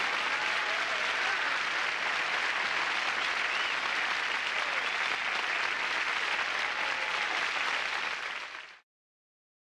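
Studio audience applauding, steady and full, then fading out to silence near the end.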